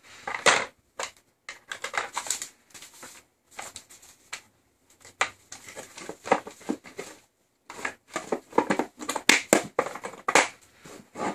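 Hard plastic tool carry case being handled as a drill and its parts are packed away: irregular clusters of clattering knocks and clicks as the lid is shut and latched, with short pauses between them.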